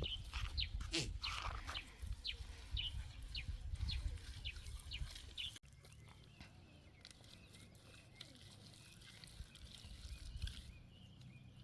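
Animal calls: short high chirps repeated about twice a second, ending at an abrupt cut about halfway through, after which only faint background remains.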